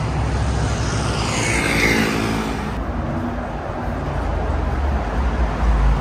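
Traffic on a busy multi-lane city road, with a car passing close by and falling in pitch about two seconds in. After about three seconds the sound changes abruptly to a low rumble.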